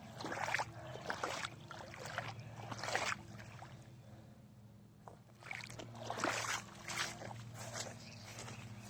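Irregular footsteps squelching through wet, muddy ground, with a pause of about a second midway, over a low steady hum.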